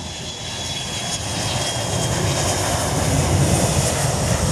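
Boeing E-3 Sentry AWACS jet rolling along the runway, the noise of its four turbofan engines growing steadily louder, with a faint steady whine over a low rumble.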